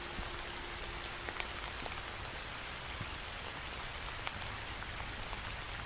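Steady rain falling, an even hiss with scattered individual drops ticking.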